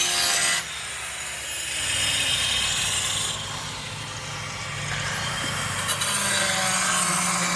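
Electric cutting machine cutting tile, a harsh high-pitched grinding. It eases off just under a second in, then picks up again, and near six seconds the blade spins back up to full cut.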